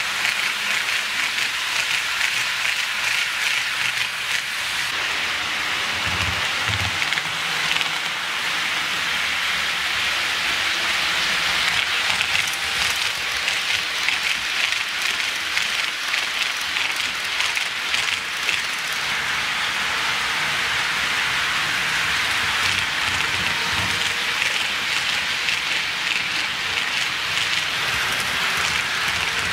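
HO scale model trains running on Kato Unitrack: a steady, dense rattle of metal wheels rolling on the rails, made of many rapid clicks.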